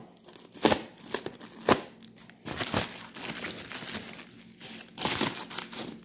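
Packaging wrap being pulled off a heavy championship belt, crinkling and rustling, with a couple of sharp crackles in the first two seconds and a longer stretch of rustling after that.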